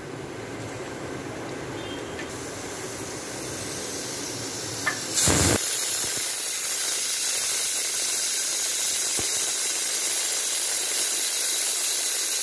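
Stainless-steel pressure cooker whistling: steam hissing out past its weight valve, growing louder, with a sudden louder blast about five seconds in and then a steady loud hiss. This is the cooker's second whistle, the sign that it has come up to pressure.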